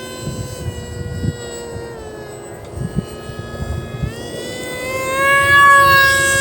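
Emax Eco II 2207 2400KV brushless motor spinning a 6x4 propeller on 3S power, a steady high whine. The pitch eases down slightly about two seconds in, then climbs and grows louder from about four seconds in as the motor speeds up.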